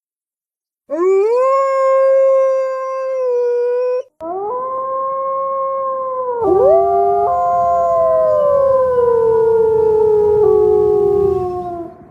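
Wolf howls used as a dire wolf creature sound effect. A long, steady howl begins about a second in; after a short break a second howl follows, then two howls overlap with a low rough noise underneath, sliding down in pitch and fading near the end.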